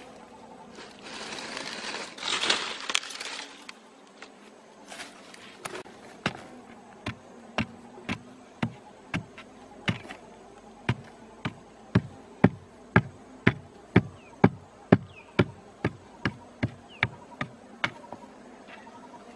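A wooden pole jabbed again and again into hard, dry soil to dig out a ground bees' nest, about two dull strikes a second and loudest in the middle of the run. Before the strikes begin there are a few seconds of scraping and rustling.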